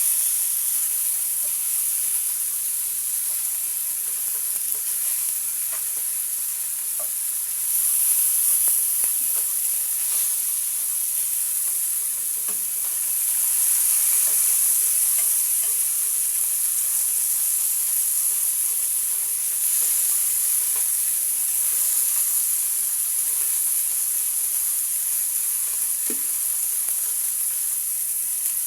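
Fish sizzling as it fries in oil in a frying pan: a steady high hiss that swells louder about eight seconds in and again around fourteen seconds, with a few faint light clicks.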